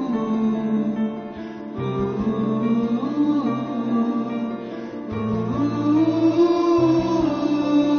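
Slow memorial ballad with guitar accompaniment, its melody moving in long held notes, with a chord change near 2 seconds in and another near 5 seconds in.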